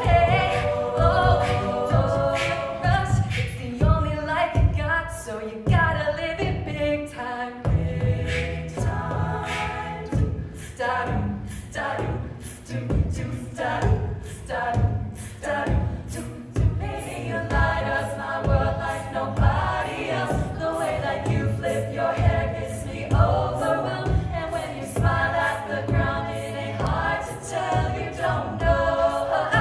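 Collegiate a cappella group singing an arrangement in several vocal parts over a sung bass line, with vocal percussion keeping a steady beat.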